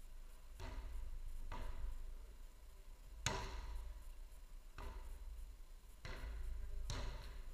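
Footvolley ball struck again and again by players during a rally: five sharp thuds a second or two apart, the loudest about three seconds in, each echoing in a large sand hall.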